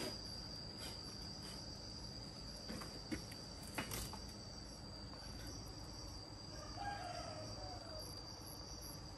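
A rooster crowing once, a short falling call about two-thirds of the way in, over a steady high-pitched insect trill. A few sharp knocks, the loudest about four seconds in.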